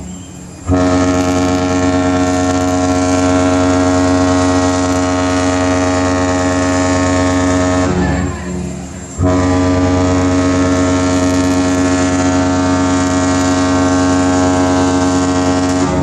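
A cruise ship's horn sounding two long, deep blasts. The first begins about a second in and holds for about seven seconds. After a break of about a second, the second starts around nine seconds in.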